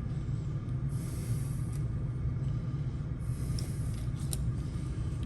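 A utility knife blade drawn along the gap around a car door handle, cutting vinyl wrap film: two stretches of light scratchy scraping, about a second in and again past the middle, with a couple of small ticks. A steady low hum runs underneath.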